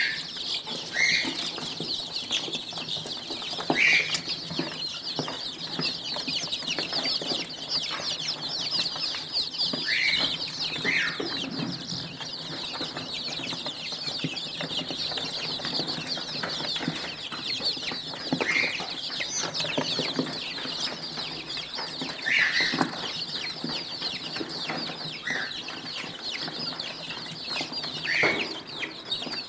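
A crowded flock of five-week-old Golden Misri chicks peeping continuously, many high-pitched peeps overlapping. A few louder, lower calls stand out every few seconds.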